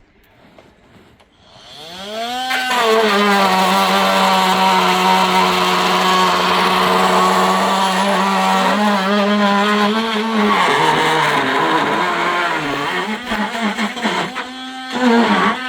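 Chainsaw revving up about two seconds in and running at steady high revs, then its pitch wavers and sags repeatedly as it is worked into the timber, with a short drop near the end before it picks up again.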